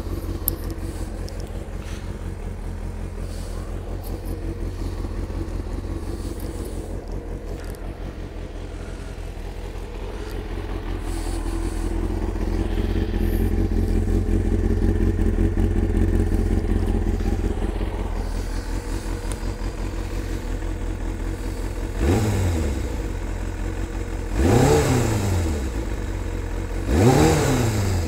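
2003 Kawasaki ZX-6R Ninja's inline-four engine idling steadily, louder for a few seconds in the middle. In the last six seconds it is revved three times, each throttle blip rising and falling quickly in pitch.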